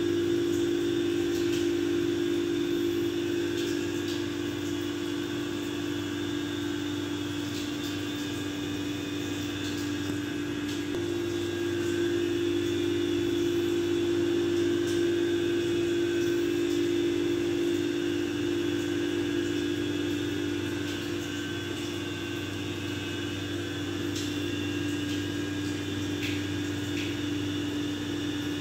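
A steady mechanical hum with a strong low drone, slowly swelling and easing in loudness, with a few faint ticks.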